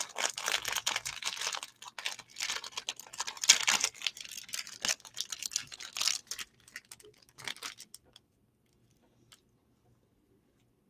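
Wrapper crinkling and rustling in irregular bursts as a packaged s'more is unwrapped by hand; it stops about eight seconds in.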